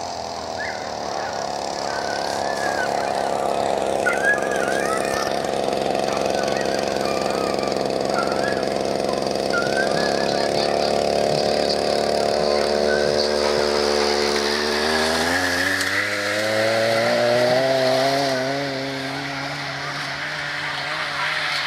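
Motor of a dog-track lure machine running steadily, then dipping and climbing in pitch over several seconds as it speeds up, and easing off near the end. High whining from racing dogs in the starting boxes can be heard over it in the first half.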